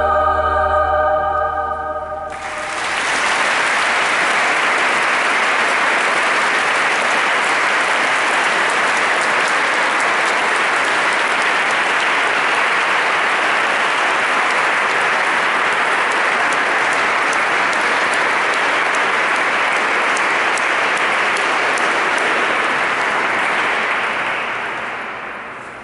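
A held musical chord ends about two seconds in, and an audience breaks into long, steady applause in a large church, fading away near the end.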